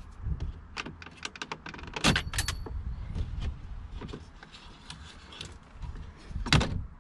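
Plastic dashboard trim clicking and creaking as a plastic pry tool levers at the centre panel of a Honda Civic EK dash. A sharp snap comes near the end as a retaining clip pops out and the panel comes loose.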